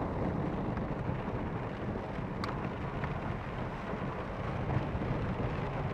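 Car driving on a wet dirt road in rain, heard from inside the cabin: a steady low rumble of engine and tyres with rain noise on the car. A single click comes about two and a half seconds in.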